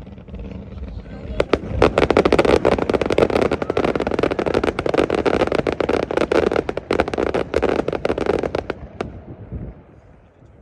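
Fireworks crackling: a dense, rapid run of many small pops and crackles that starts about a second and a half in and dies away near the end.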